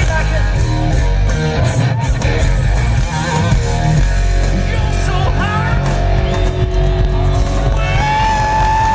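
A live rock band playing: electric guitar over bass and drums, with the melody bending in pitch and a long held note near the end.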